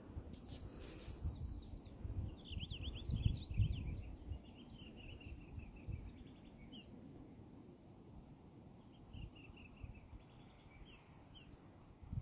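Small songbird singing in quick phrases of high trills and runs of repeated notes, twice, over an uneven low rumble of outdoor noise that is loudest in the first few seconds.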